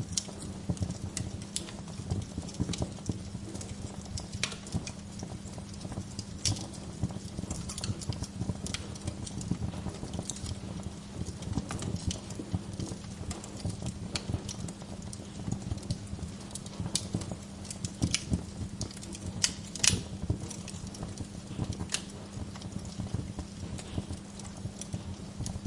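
Wood fire burning in a fireplace, crackling with frequent irregular sharp pops over a low steady rumble. A louder pop comes about twenty seconds in.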